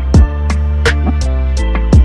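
Background music with a steady beat: deep bass drum hits, sharp percussive strikes and sustained bass and melody notes.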